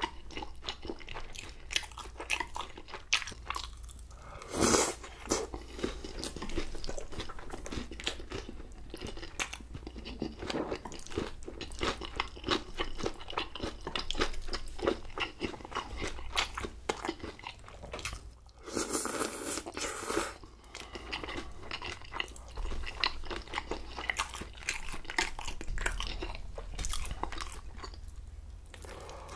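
Close-miked eating: a person chewing and crunching mouthfuls of Korean-Chinese food (tray jjajang with onions, and sweet-and-sour pork), with steady wet chewing and crunchy bites. Two longer, louder noisy stretches come about five seconds in and again around twenty seconds in.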